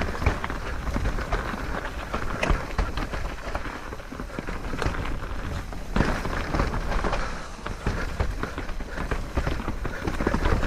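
Santa Cruz Bullit electric mountain bike riding a slick dirt trail: tyres rolling over rough ground with a constant clatter of knocks and rattles from the bike, over a steady low rumble.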